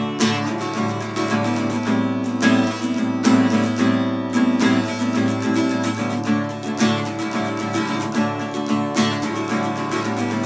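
Acoustic guitar being strummed in a steady rhythm, playing chords.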